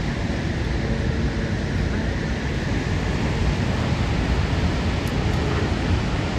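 Steady rushing noise of the water pouring over Niagara Falls.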